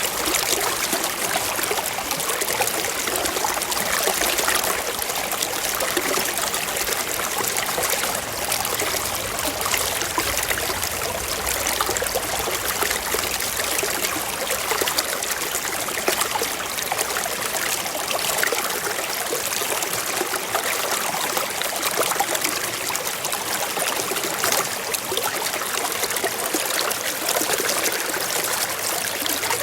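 Shallow stream running and trickling over rocks, a steady even rush of water.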